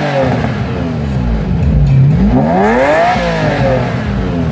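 Ferrari Testarossa's flat-twelve engine on its stock exhaust, revving: the pitch falls away from one rev at the start, then climbs to a second peak about three seconds in and drops back.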